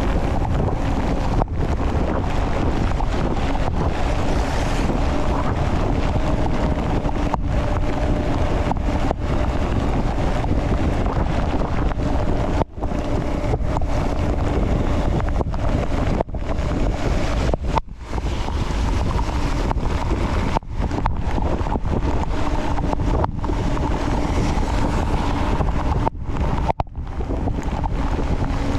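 Wind rushing over a GoPro action camera's microphone during a fast mountain-bike descent, a loud steady noise that drops out for an instant several times.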